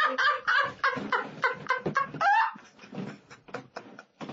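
Hard laughter in rapid, high-pitched pulses, about four a second, growing fainter and sparser over the last couple of seconds.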